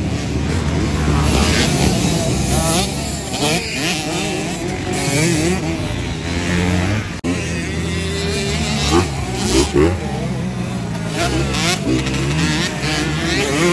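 Several small youth dirt bikes' engines running on a track, their pitch rising and falling as they rev up and ease off, overlapping one another.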